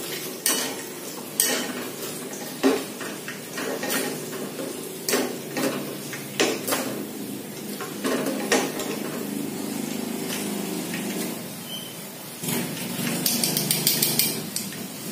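Wire spider strainer and metal tongs clinking and knocking against a wok, again and again, as fried tilapia pieces are lifted out of the hot oil, over a steady background hiss. Near the end comes a quick run of rattling as the loaded strainer is shaken over the wok.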